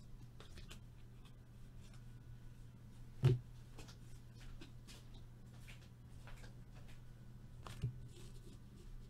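Trading cards being handled: faint scattered rustles and clicks of card stock, with a sharper knock about three seconds in and another near the end, over a steady low hum.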